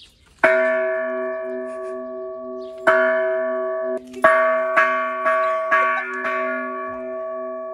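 A metal bell struck seven times, three spaced blows and then four quicker ones about two a second, each leaving a long, deep ringing that overlaps the next and slowly dies away.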